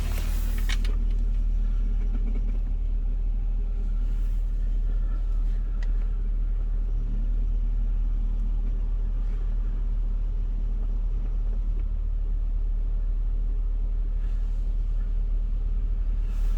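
Chery Tiggo 7 Pro engine idling on a cold start, a steady low drone with a faint steady hum above it. A short hiss fades out in the first second.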